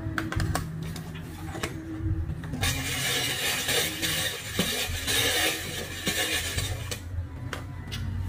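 A few light clinks of a spoon against a plastic cup, then from about two and a half seconds in a hand-cranked ice shaver grinding ice, a steady scraping noise lasting about four seconds.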